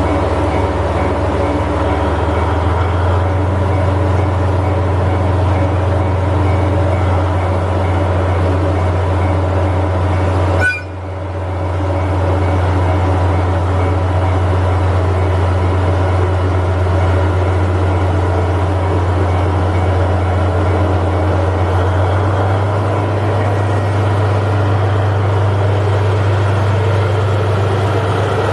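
DF200 diesel-electric freight locomotive running with a loud, steady low drone, broken by a sudden brief dip in level about eleven seconds in.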